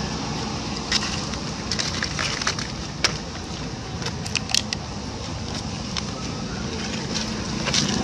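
Close rustling and scraping with scattered sharp crackles and clicks over a steady hiss, as a macaque's fur and hands brush against the camera microphone.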